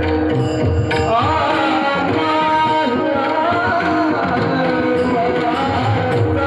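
Indian-style music: a melodic line gliding over steady held drone tones, with continuous hand-drum beats underneath.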